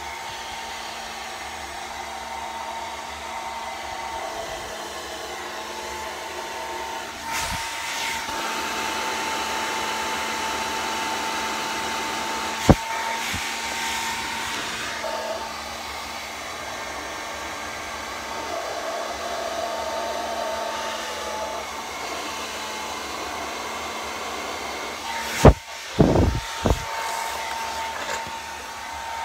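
Hand-held blow dryer running steadily, a constant rush of air with a fixed whine. A sharp knock comes about halfway through, and a few loud thumps near the end.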